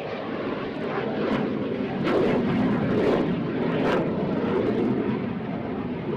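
Aircraft engine noise from a fixed-wing aircraft, a steady rushing rumble that grows louder about two seconds in.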